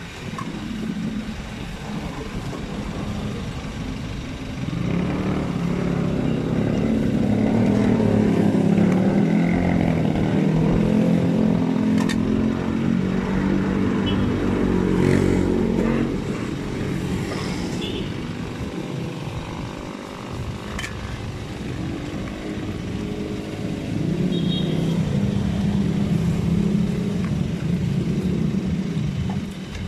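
A motor vehicle's engine runs close by, its pitch drifting up and down. It grows louder about five seconds in, eases off after about sixteen seconds, and swells again about twenty-four seconds in, over steady street noise.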